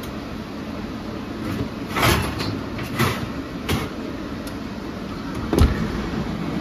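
An oven rack with a glass baking dish slid back in with a few metal knocks, then the oven door shut with a heavy thump near the end, over a steady low hum.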